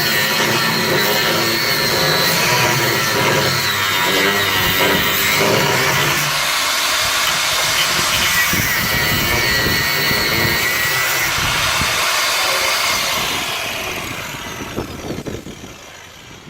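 Angle grinder with a cut-off disc cutting through the steel of a car's bulkhead, a loud high whine that wavers in pitch as the disc loads up in the metal. Near the end it fades away as the cut finishes and the tool winds down.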